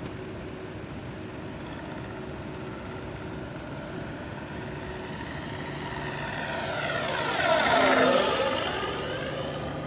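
Flightline F4U-1A Corsair RC warbird making a low flyby: an electric motor and propeller, with a simulated engine sound from its onboard speaker. It grows steadily louder, passes closest near the end, then starts to fade.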